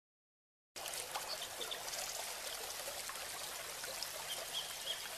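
Faint, steady trickling stream, starting about three-quarters of a second in, with a few short high chirps over it.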